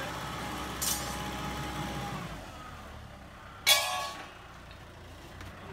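Kubota farm tractor's diesel engine running while it pushes soil with a front blade, easing off a little over two seconds in. A sharp, loud clank with a short ringing tail sounds about three and a half seconds in, with a smaller crack earlier.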